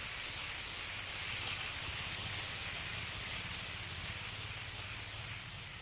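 Chorus of cicadas holding a loud, steady high-pitched buzz with a slight fast pulsing, beginning to fade near the end.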